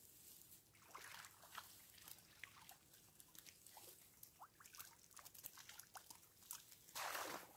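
A wire-mesh keepnet full of small roach being lifted out of a pond: water dripping and trickling from the mesh, with scattered small splashes and ticks, and a brief louder splash near the end.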